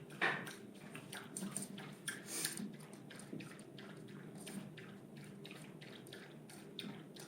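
Young shih tzu puppies moving about, heard as many faint, irregular soft clicks and rustles, a few a second, with a couple of louder ones in the first two and a half seconds.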